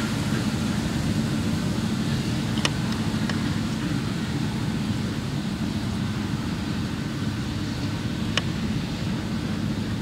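New Holland CR8.90 combine harvester running steadily while cutting wheat, a low even drone. Two faint sharp ticks come through, about three seconds in and again about eight seconds in.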